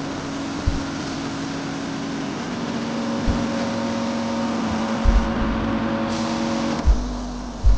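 Compressed-air paint spray gun hissing steadily as it sprays automotive paint, over a steady machine hum. A few short low thumps break in, several of them in the second half.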